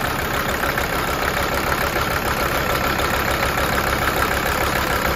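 Mercedes-Benz OM617 five-cylinder turbo diesel idling steadily, with the fuel injector line nut at one injector loosened by a wrench.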